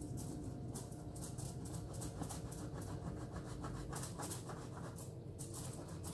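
Quick, irregular scratchy strokes of a knife cutting through layered baklava pastry in a metal baking tray, over a steady low hum.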